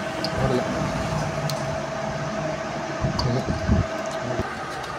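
Steady fan-like hum with a thin steady whine that stops about four and a half seconds in. A few dull knocks a little past three seconds in, as a scooter's starter motor is handled and worked loose from its mounting.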